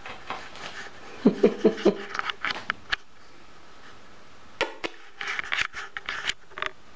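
Kittens clawing and scrabbling at a net curtain by a window, making scattered scratches, light taps and cloth rustling. About a second in comes a quick run of four short vocal sounds.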